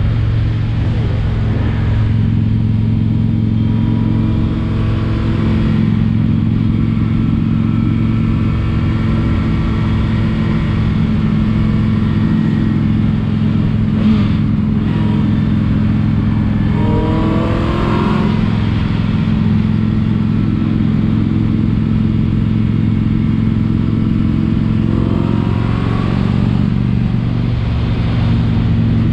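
Motorcycle engine running steadily under way. Its pitch rises twice, about two-thirds of the way in and again near the end, as the bike accelerates.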